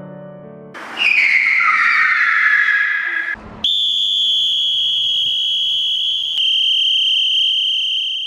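Sound effects: a loud screech like skidding tyres, falling in pitch for about two and a half seconds, then after a short break a long steady high-pitched tone that holds to the end.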